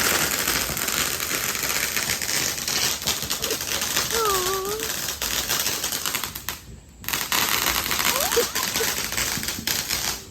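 Small ground firework crackling: a dense, rapid stream of tiny pops. It breaks off briefly about six and a half seconds in, starts again, and cuts off near the end. A short wavering voice-like cry is heard about four seconds in.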